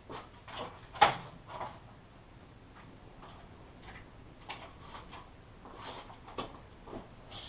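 Light knocks and clicks of timber dome frames being handled and lined up, with one sharper knock about a second in.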